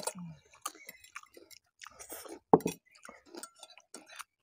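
Several people chewing noodles, with metal forks clinking and scraping on plates in short scattered clicks; one louder knock about two and a half seconds in.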